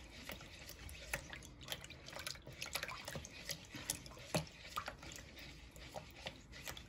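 Silicone spatula stirring milky dough liquid in a plastic bowl: faint, irregular sloshing and small splashes and clicks.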